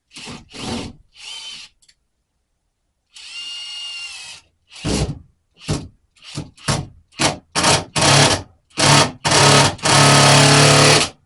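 Power drill run in short trigger bursts, likely driving screws to fasten a wall panel: a few short runs, a steadier run with a whine about three seconds in, then a string of bursts getting longer, the last and loudest over a second long.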